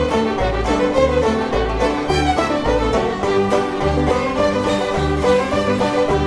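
Background music: a string tune with a fiddle over steady, evenly stepping bass notes.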